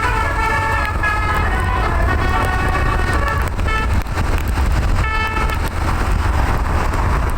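Tour bus's telolet musical air horn playing a quick tune of changing notes, with short breaks between phrases, over a heavy low rumble of road noise.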